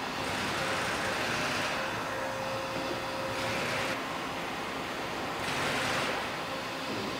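CNC machining center milling a clamped metal mold block: the spindle and cutter run with a steady hissing cutting noise that swells and eases about four times, over a faint steady whine.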